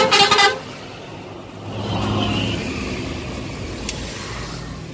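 A loud vehicle horn blast that cuts off about half a second in, followed by road noise and an engine picking up speed about two seconds in.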